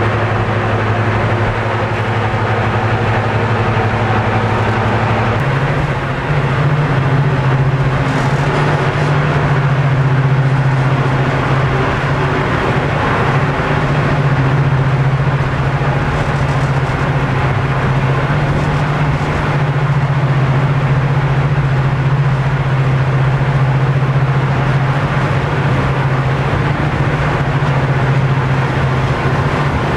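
The twin Napier Deltic two-stroke diesel engines of a British Rail Class 55 Deltic locomotive, heard from inside the cab, running steadily. About five seconds in, the engine note steps up to a higher pitch and holds there.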